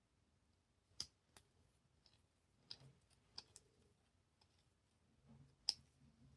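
Victorinox Spartan Swiss Army knife being handled during cleaning: a handful of light, scattered clicks and taps, the loudest near the end.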